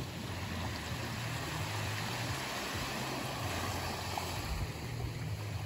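Small waves lapping and washing up onto a sandy shore: a steady wash of water noise with a low rumble underneath.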